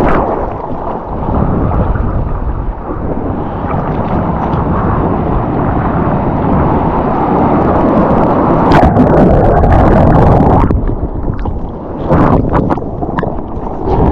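Heavy wind buffeting on the microphone mixed with the rush of surf water, with louder splashing bursts about nine seconds in and again near twelve seconds.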